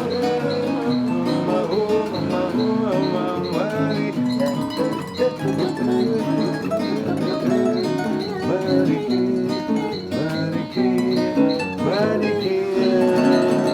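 Instrumental music led by plucked guitar-like strings over a steady small high tick about twice a second, with a few sliding notes.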